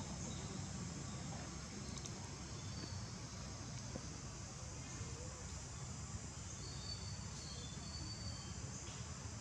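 Steady high insect buzzing over a low background rumble, with a few faint short high chirps in the second half.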